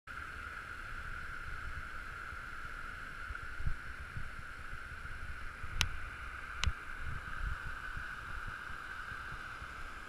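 White water rushing over a rocky rapid, a steady hiss, with uneven low rumbling underneath. Two sharp clicks come a little under a second apart, past the middle.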